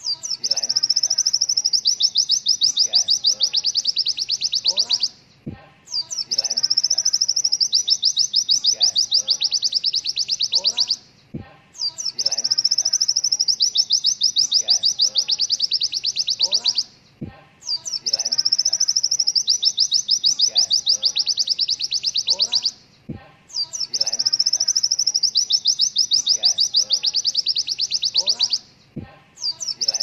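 White-eye (pleci) singing its 'tembakan' song: a very fast rattling trill of high notes, each burst about five seconds long, repeated five times with short breaks between.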